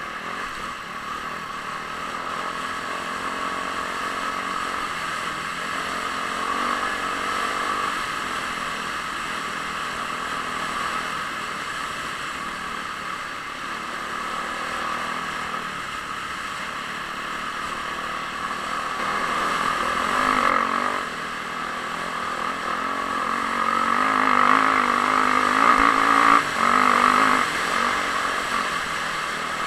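Dirt bike engine running hard at speed, heard from a helmet camera, its note rising and falling with the throttle. It gets louder for a few seconds near the end, with a brief drop in the middle of that stretch.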